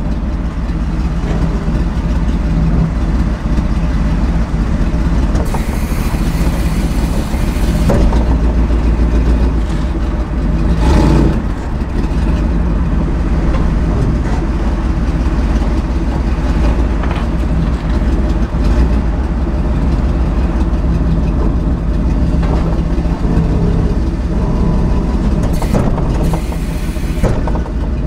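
Tow truck engine running steadily as the truck maneuvers slowly, with a stretch of hiss about six seconds in and another near the end.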